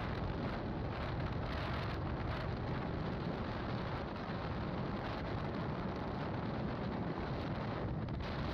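Wind rushing steadily over the microphone of a moving TVS Raider 125 motorcycle, mixed with its single-cylinder engine and tyre noise at cruising speed.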